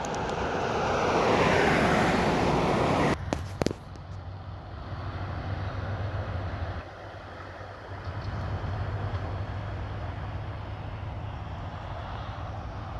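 Traffic noise from a passing vehicle swells and then cuts off abruptly about three seconds in, with a few knocks. A steady low hum and road noise continue after.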